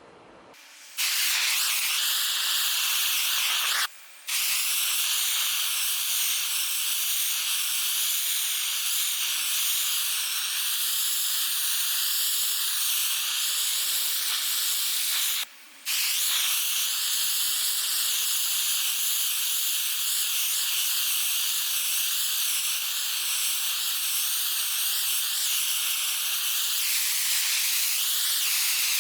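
Handheld gas torch flame hissing steadily, as used to scorch a wooden axe handle; it cuts out abruptly twice for a moment.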